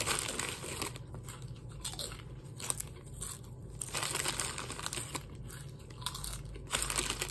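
Nacho Cheese Doritos tortilla chips being crunched and chewed close to the microphone, with a run of irregular crisp crackles. Near the end another chip goes into the mouth and the crunching gets louder.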